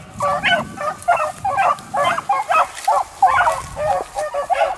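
Beagles baying in short, rapid, overlapping bays, several a second, as the pack runs a rabbit's scent trail.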